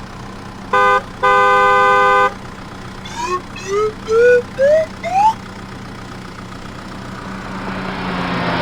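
Cartoon vehicle horn honking twice, a short beep and then a longer one, followed by five quick rising whistle glides, each starting higher than the one before. A whooshing swell builds near the end.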